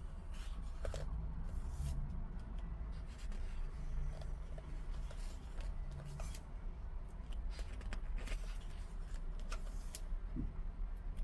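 Glossy pages of a large photobook being turned and smoothed by hand: short paper swishes and slides now and then, over a steady low hum.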